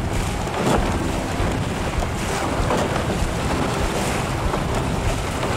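Fast mountain river water rushing past a wooden raft, with steady wind noise on the microphone.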